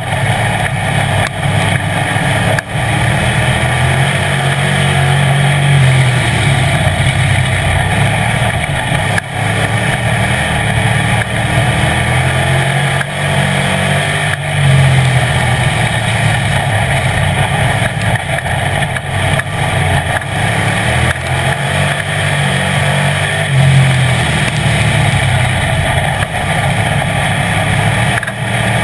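Street stock race car's engine heard from inside the cockpit, running hard at racing speed, its note swelling and dropping back every few seconds as the car accelerates and lifts through the laps.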